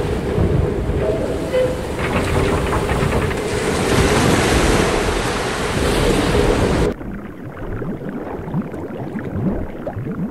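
Storm-at-sea sound effects of waves and wind, with a faint steady low tone running under them. About seven seconds in it cuts abruptly to a quieter, muffled underwater sound with low gurgles.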